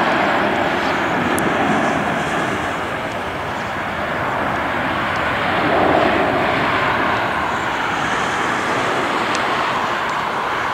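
Twin jet engines of a Boeing 767-300ER freighter at takeoff thrust as it climbs away: a steady rushing jet noise with gentle swells in loudness.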